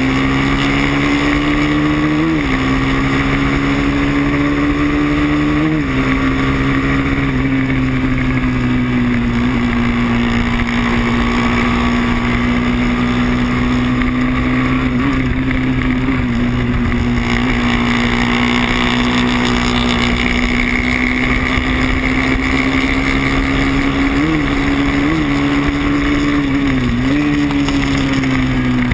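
Moto3 racing motorcycle's engine at high revs, heard onboard, its note held nearly steady with brief breaks in pitch about two and six seconds in. Near the end it blips and dips several times, as when changing down for a corner, over steady wind rush on the microphone.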